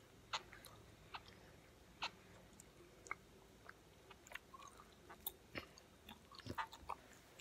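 A child chewing a mouthful of food: faint, scattered wet clicks and smacks, coming closer together a little before the end.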